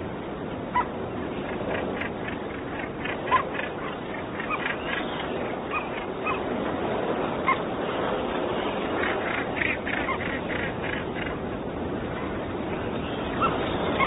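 Northern gannet colony calling: many overlapping calls over a steady din, with a few louder single calls standing out.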